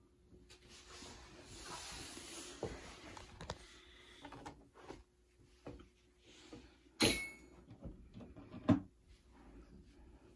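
A plastic pet carrier being handled, with rustling and light clatter, then two sharp knocks about a second and a half apart near the end.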